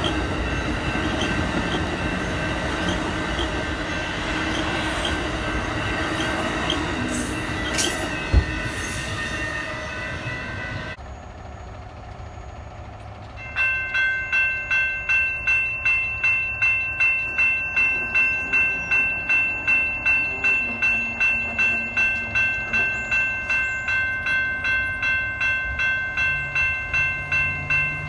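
Passenger train rolling past a grade crossing, with a single thump about eight seconds in. After a cut, a railroad crossing bell starts ringing, about two strikes a second.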